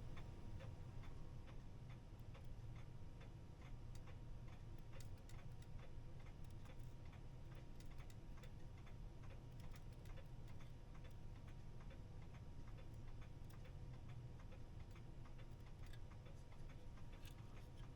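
Herschede clock movement ticking faintly and fairly regularly as its pendulum swings, a movement its restorer thinks is not getting enough power to keep running.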